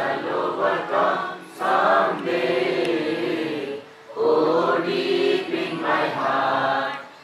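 A large group of scouts and guides singing a prayer together, in phrases of about two seconds with short breaks between them.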